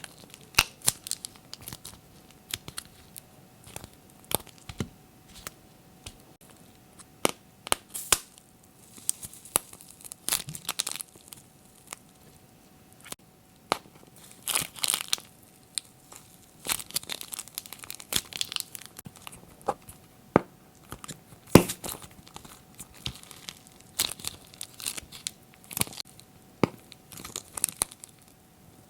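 Glossy slime being mixed and squished by hand: irregular sticky crackles and small pops, coming in short clusters with brief pauses between them.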